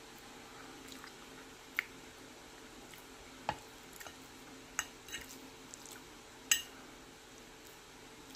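Eating sounds: a metal fork clicking against a plate several times as it picks up mashed potatoes, with soft wet squishing from the food and mouth. The loudest click comes about two-thirds of the way in.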